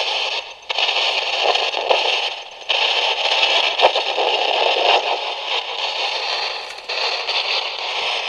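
Hiss and crackle of radio static from a Sangean portable radio sweeping the FM band, played through a small speaker via an echo delay box. The static drops out briefly three times.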